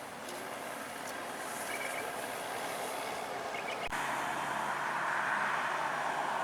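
Engine and road noise of a heavy vehicle on the road, growing steadily louder as it approaches. A sudden click comes about four seconds in, after which the noise is louder, with a steady low hum beneath it.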